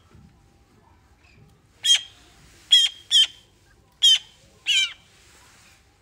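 A young Eurasian magpie giving five short, harsh begging squawks, the first about two seconds in, the last near the five-second mark.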